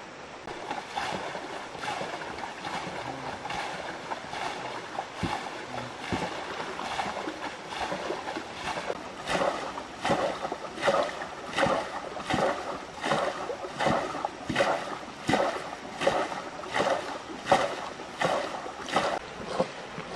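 Rhythmic water splashing from a small boat on a river, about three splashes every two seconds, growing stronger about halfway through.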